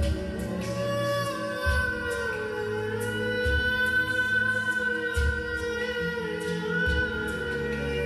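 Slow ambient meditation music: long, gliding melody lines over a deep bass pulse that returns about every second and a half.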